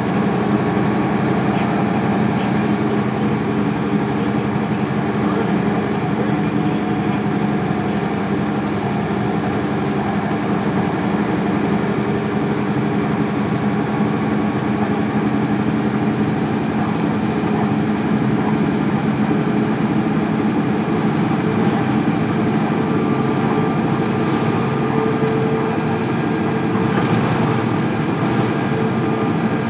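Isuzu Cubic KC-LV380L city bus's 8PE1 V8 diesel engine running steadily, with an even drone that holds one pitch.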